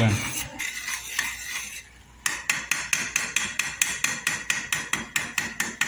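Metal spoon stirring a thick milk-and-cream sauce in an aluminium saucepan, scraping at first, then about two seconds in a steady run of ringing metallic clinks, about five or six a second, as the spoon beats against the side of the pot.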